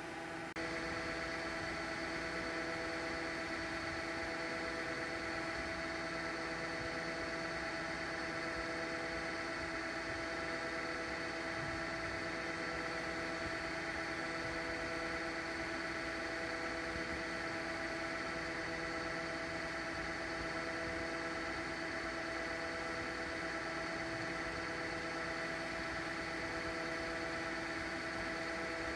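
CNC lathe running steadily while turning a 12.7 mm BMG dummy round: an even machine hum with a steady whine, a little louder from about half a second in.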